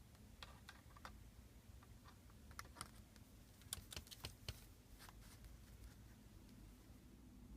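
A scatter of faint, sharp clicks and light taps over near-silent room tone, thickest around the middle, with no sustained effect sound.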